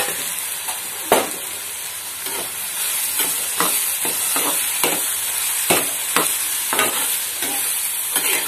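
Chopped bitter gourd, just added to hot oil in a metal kadai, sizzling steadily as it fries. It is stirred throughout, and the utensil scrapes and knocks against the pan in irregular strokes about twice a second.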